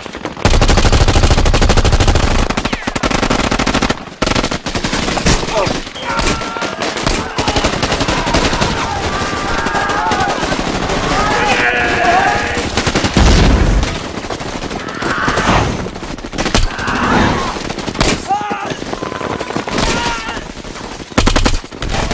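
Movie battle soundtrack: continuous automatic rifle and machine-gun fire, with a heavy boom about half a second in and another about halfway through. Men shout over the gunfire.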